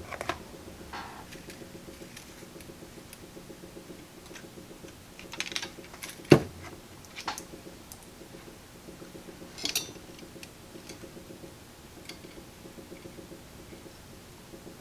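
Small clicks and taps of tools and wires being handled on a workbench while wires are soldered together, with one sharper knock about six seconds in, over a steady low hum.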